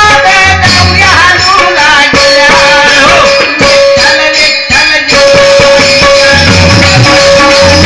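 Indian folk-style music: a singing voice carries a melody over a steady held note, with hand-drum beats and jingling percussion. The drums drop out for a few seconds in the middle, then come back.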